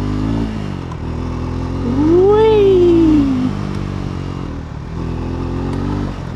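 Triumph Scrambler 400 X's single-cylinder engine running steadily at low speed on a rough dirt track. From about two seconds in, a louder pitched sound rises quickly and then falls slowly for about a second and a half over the engine.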